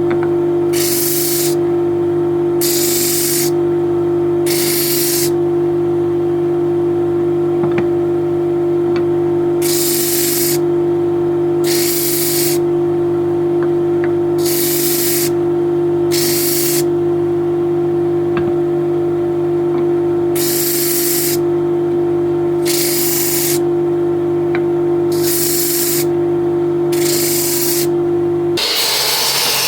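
Workshop machine running with a steady, pitched hum, overlaid by repeated hissing bursts about a second long each, like short blasts of air. The hum cuts off near the end.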